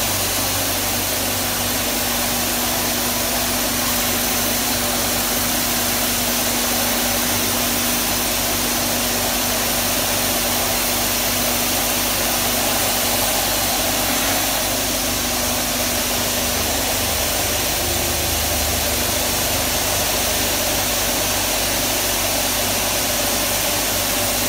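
Steady roaring rush of an industrial vacuum drawing catalyst pellets up a suction hose from a robot's nozzle, with a steady hum underneath that stops about two-thirds of the way through.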